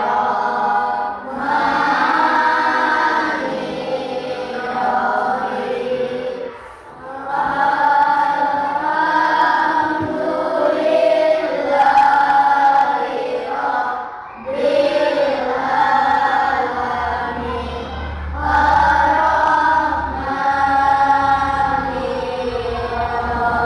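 A class of schoolchildren singing a song together in unison, in phrases of a few seconds separated by brief breaths.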